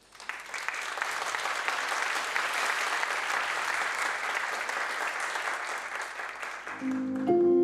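Audience applauding after a guest is welcomed to the stage. The applause dies down near the end as music with sustained notes begins.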